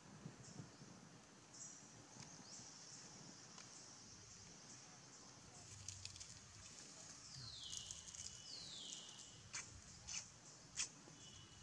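Faint outdoor forest ambience: a steady high-pitched hiss, with two falling whistle-like calls a little past the middle and a few sharp clicks near the end.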